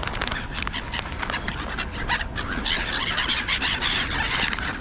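A flock of black-headed gulls calling and flapping as they take off and flutter low, the calls thickening about two and a half seconds in.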